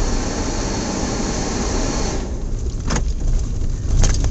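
Suzuki Jimny rolling slowly along a dirt track: a steady low engine and tyre rumble, with a hiss over it that drops away about two seconds in. Short rattling knocks come about three seconds in and again near the end.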